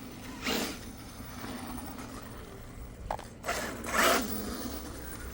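RC car's electric motor and drivetrain revved in short throttle bursts, three in all, the loudest about four seconds in.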